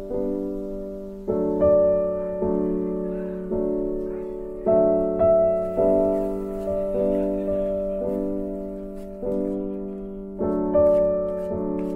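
Background piano music: slow chords, each struck and left to fade, about one a second.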